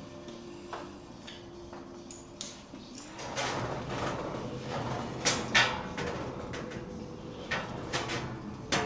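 Sharp knocks and clatter, as of tools or hard objects being handled, over a steady rushing background noise that starts about three seconds in. The loudest knocks come about five and a half seconds in and again near the end.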